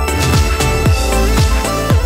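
Electronic background music with a steady kick drum, about two beats a second, under sustained synth notes.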